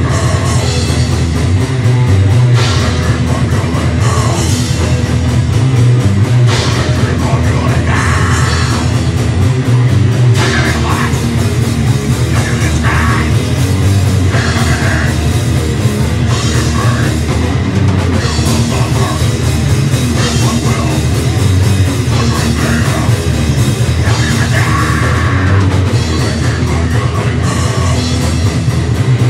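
Live heavy metal band playing loud: electric guitar over a pounding drum kit, with no vocals.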